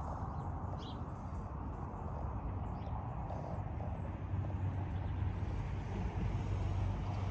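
A steady low outdoor rumble that grows louder about halfway through.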